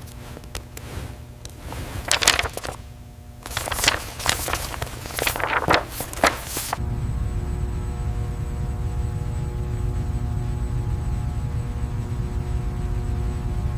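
Irregular hissing bursts over a low hum. About seven seconds in, the bursts stop and a steady low machine hum carries on.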